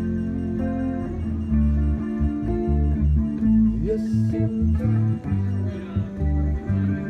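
Live band playing an instrumental passage, with guitar and a bass line.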